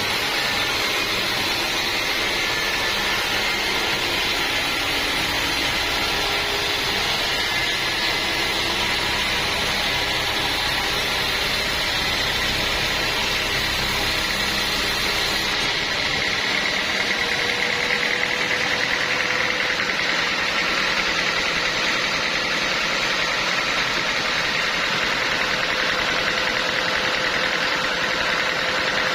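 Portable sawmill running steadily, its engine and saw making a continuous mechanical drone.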